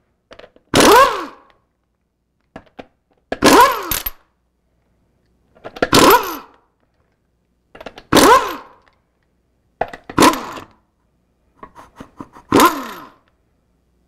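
Pneumatic impact wrench hammering lug nuts loose on a car's front wheel, in six short bursts about two seconds apart. The pitch falls through each burst as the tool winds down.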